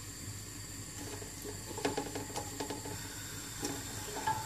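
Chopped onions, green chilies and cumin seeds sizzling in hot oil in a large aluminium pot, a steady hiss. A wooden spoon stirs them, scraping against the pot a few times around two and three and a half seconds in.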